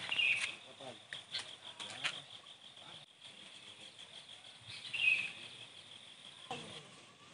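Evening forest ambience: insects chirping in a steady, rapidly pulsing high trill, with a short bird chirp just after the start and again about five seconds in.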